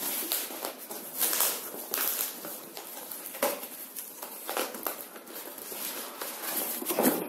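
Cardboard scraping and rustling as a boxed robot vacuum is pushed and slid out of its outer cardboard shipping carton, with irregular scuffs and knocks, a louder one near the end.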